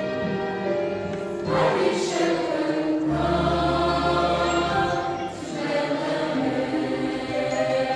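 Mixed church choir of women and men singing a Christmas carol, holding long chords, with a low note sounding beneath for a second or two in the middle.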